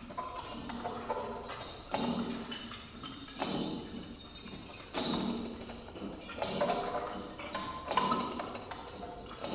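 Rhythmic knocking strikes, one about every second and a half, each with a short ringing tail, over a faint clatter.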